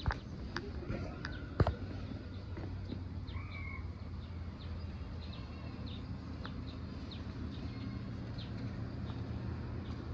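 Outdoor ambience with scattered short bird chirps over a low steady rumble, and two sharp knocks in the first two seconds.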